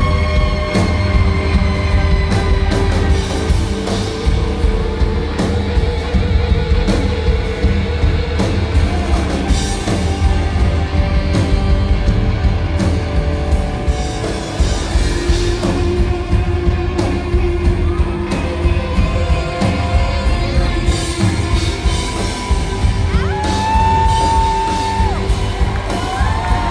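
Live rock band playing with electric guitar, drums and saxophone, the saxophone holding long notes and sliding between them over the band; no sung words come through.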